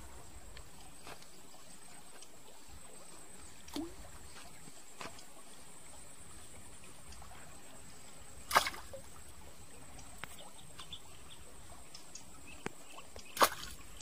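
Shallow stream water trickling over stones, a steady low wash, under a thin steady high-pitched tone. Two sharp clicks stand out, one about eight and a half seconds in and one near the end.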